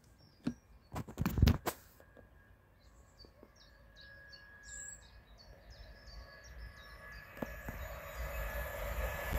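A few sharp handling knocks, the loudest sound here, then a small bird singing a repeated chirping phrase, about two to three notes a second. Near the end a rushing noise builds as an electric train approaches along the line.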